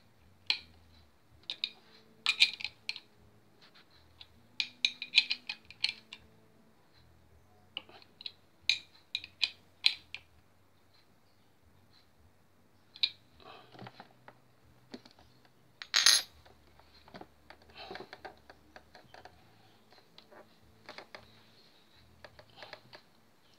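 Metal spanner clinking and clicking against the oil drain plug of a vacuum pump as the plug is tightened after an oil drain, in uneven clusters of sharp metallic clinks, with one louder clack about two-thirds of the way through.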